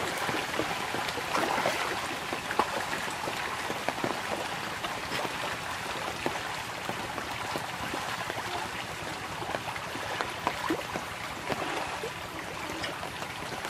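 Pond water churning and splashing as a dense shoal of pangasius catfish thrash at the surface in a feeding frenzy, with many small splashes overlapping.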